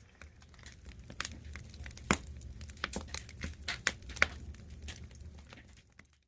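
Plastic packaging crinkling and rustling as it is handled, with scattered sharp clicks and taps, the loudest about two seconds in and again about four seconds in. The sound cuts off suddenly near the end.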